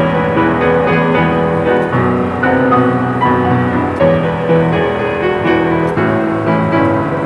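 Solo acoustic street piano playing a pop melody with bass notes and chords.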